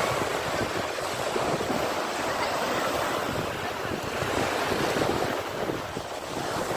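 Sea waves breaking and washing on the shore in a continuous surge that swells and eases, with wind.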